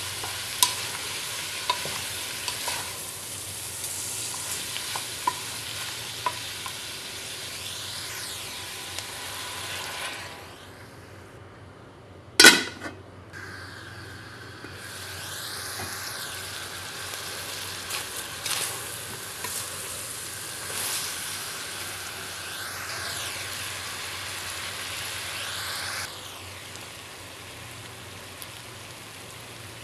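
Beef frying and sizzling in a large metal pot while a wooden spoon stirs it, with small clicks of the spoon against the pot. About twelve seconds in comes one loud clang as the metal lid goes on, after which the sizzling carries on more softly.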